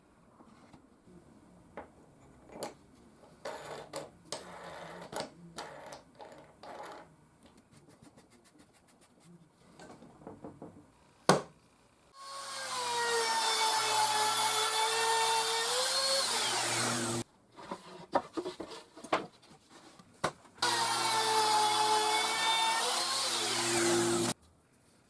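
A small electric power tool's motor runs in two bursts of about five and four seconds, its whine sagging under load and then recovering. Before that come light clicks and knocks of wooden parts being handled.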